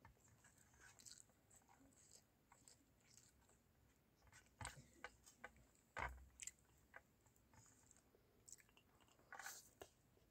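Faint close-up eating sounds of a child chewing rice and egg eaten by hand: soft mouth smacks and clicks scattered through, the sharpest about six seconds in, with fingers scraping rice across a steel plate.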